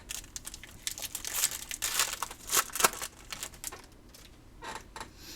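Foil trading-card pack wrapper crinkling and tearing as a pack is opened and handled, a rapid run of crackles for about four seconds that tails off near the end.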